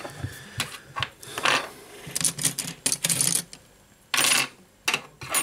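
Handling noise from the housing and parts of a Lenovo Yoga Tablet 10 being taken apart: a series of plastic and metal clicks, taps and rattles, loudest a little after four seconds in.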